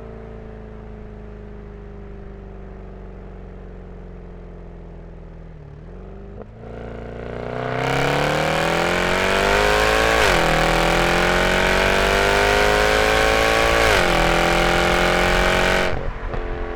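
Exhaust of a 2007 Mercedes-Benz E63 AMG's 6.3-litre M156 V8 with the resonator deleted: light-throttle cruising with the engine pitch slowly falling, then a hard full-throttle acceleration about halfway through, the pitch climbing through two upshifts, before the driver lifts off near the end.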